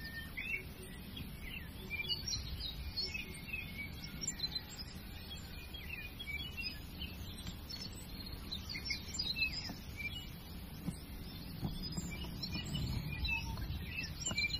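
Small songbirds chirping and twittering on and off, over a low steady background rumble.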